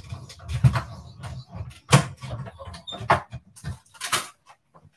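Hand-cranked die-cutting machine running a stitched die and cardstock through between its cutting plates: a run of irregular clicks, knocks and rattles, with a longer scraping rustle about four seconds in as the plates come out. The sounds stop shortly before the end.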